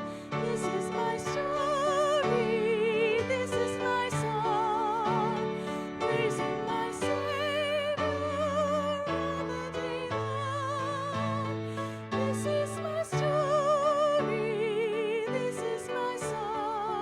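Church worship music: a melody sung or played with strong vibrato over sustained accompaniment chords that change about every second.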